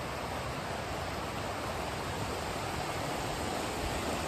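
Fast mountain creek rushing over rocks: a steady, even rush of water.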